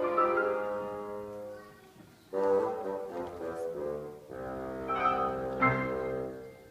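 Bassoon and piano duet playing the closing bars of a piece: sustained notes, a brief near-pause about two seconds in, then a final held chord that fades away near the end.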